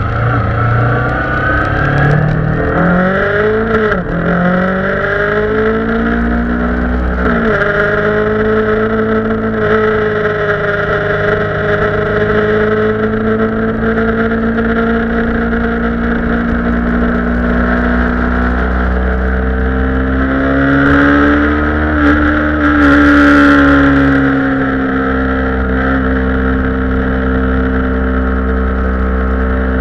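Kawasaki Ninja 250's parallel-twin engine running at speed on an onboard camera, with wind noise over the microphone. The engine pitch dips and climbs a few times early on, then holds fairly steady. About three-quarters of the way in there is a louder rush.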